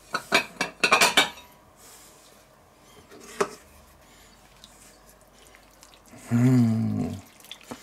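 Ceramic plates clinking and clattering as a deep plate is lifted from a stack, then a single click of a ladle being picked up. About six seconds in, a short hummed voice sound.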